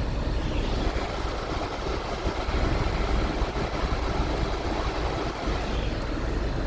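Ford Fusion idling with its climate-control blower running: a steady low hum with an even rush of air.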